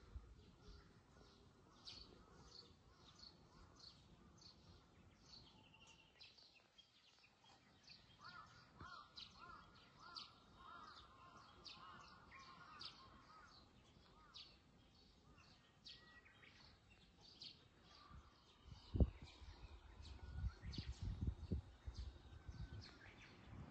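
Faint outdoor birdsong: many short, high chirps throughout, with a lower, repeated warbling song a third of the way in. Low rumbling bumps come in near the end.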